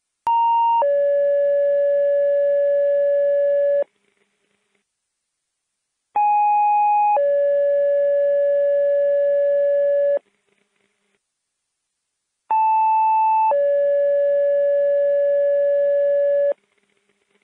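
Fire dispatch two-tone sequential paging tones over the radio channel: three sequences, each a short higher tone stepping down to a long, steady lower tone lasting about three seconds, with short silences between. Each sequence opens on a slightly different first tone, alerting a different station or unit.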